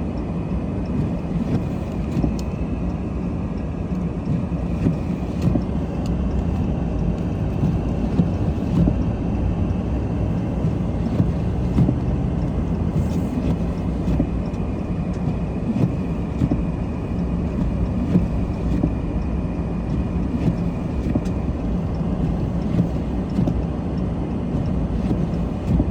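Steady low rumble of a car driving on snowy roads, heard from inside the cabin, with a few faint clicks.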